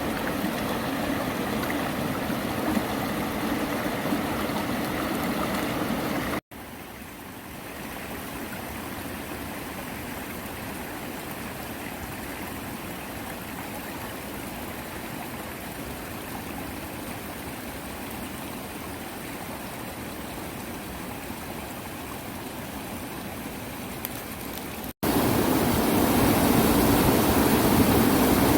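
Mountain valley stream rushing steadily over rocks. The sound drops out for an instant twice, and the middle stretch is quieter than the start and the end.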